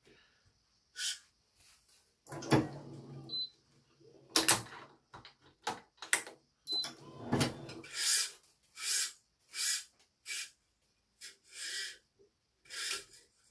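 Badminton racket being strung with Yonex BG80 string: a few sharp knocks and clicks from the stringing work, then a run of short high swishes, about one a second, as the string is drawn through.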